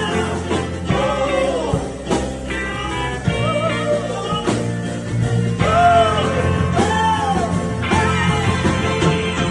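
Rock band playing a slow soul-rock ballad, with wordless sung lines that rise and fall over the band.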